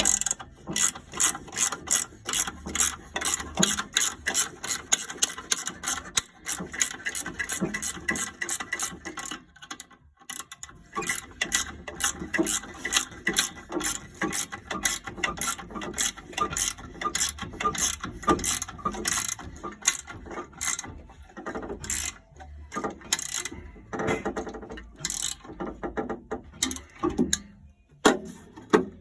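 Ratchet tool clicking rapidly in runs as fasteners are worked, with a few short pauses.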